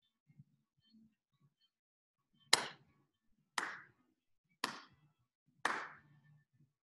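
Four hand claps, evenly spaced about a second apart, each with a short ringing tail. A few faint low thumps come before them.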